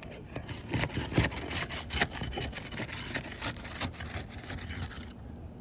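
Crowbar prying under an asphalt roof shingle, with irregular scraping and sharp cracking as the shingle's sealant strip is broken loose; it stops about five seconds in.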